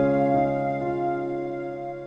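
Soft, slow piano-like keyboard music: sustained chords that fade gently toward the end.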